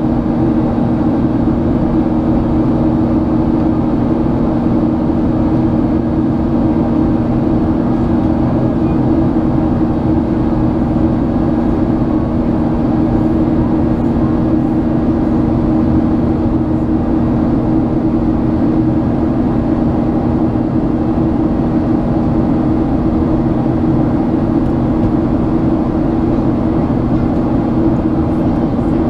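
Boeing 737-800's CFM56-7B turbofan engines at climb power, heard inside the cabin from a window seat: a steady drone with a strong low hum, unchanging throughout.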